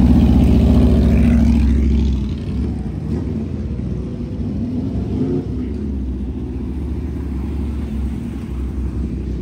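A motor vehicle engine running with a deep, loud note for about two seconds, then easing off and running on more quietly with a low rumble.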